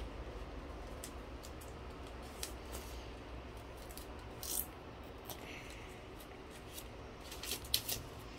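Colored origami paper being folded and creased flat by hand: scattered soft crinkles and taps, a few sharper ones near the end, over a faint steady low hum.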